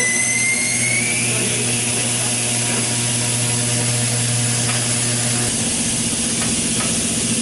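Electric motor of a tyre-service machine running with a steady hum, a whine rising in pitch over the first second, and air hissing throughout; the lower part of the hum cuts off about five and a half seconds in.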